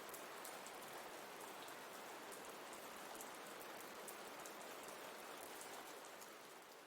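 Steady rain falling: a soft, even hiss with many fine drop ticks. It begins to fade out near the end.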